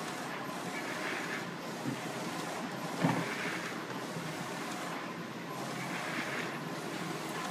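Direct-to-garment textile printer running, printing onto a T-shirt: a steady machine noise with a whirring swell every two to three seconds as the print passes are made, and a short knock about three seconds in.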